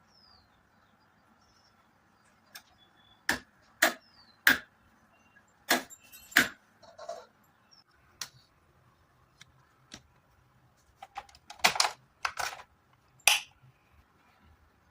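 A series of sharp, irregular clicks and knocks of small hard objects being handled, about a dozen in all, bunching together near the end.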